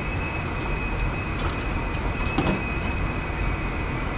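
Steady background noise of a working restaurant kitchen: a constant rumble and hiss from the kitchen machinery with a thin high whine running through it. A few light clinks of utensils come about halfway through.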